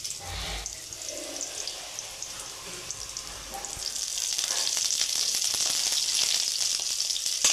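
Onions and green chillies sizzling in hot oil in a kadai. The sizzle grows louder about four seconds in, as curry leaves go into the hot oil.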